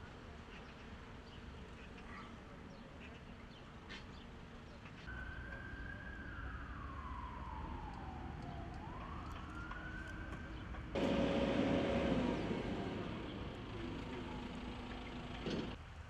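A siren wailing faintly, its pitch sliding slowly down and then back up once. About eleven seconds in, a louder rush of noise with a steady hum cuts in suddenly and dies away a few seconds later.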